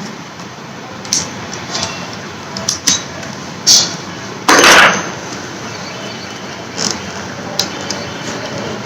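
Scattered plastic clicks and knocks as a helmet intercom mount is handled and pressed into place, with one longer scraping rustle about halfway, over a steady hiss.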